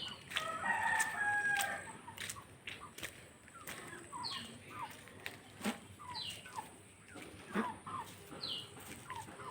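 Chickens clucking and calling: a drawn-out call in the first second or two, then a run of short calls, some sliding down in pitch, with scattered clicks.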